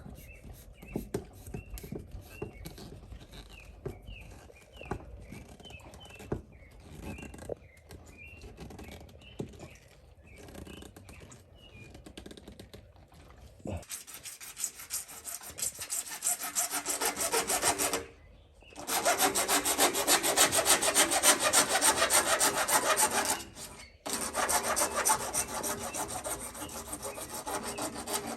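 Harsh rubbing and rasping on plastic plumbing fittings for the pond outlet, in three long stretches of several seconds each with short breaks between them, after some quieter handling clicks.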